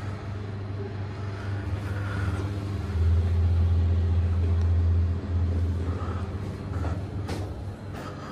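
Schindler elevator car travelling between floors, heard from inside the car: a steady low hum that grows louder about three seconds in and eases off after about five, with a couple of clicks near the end.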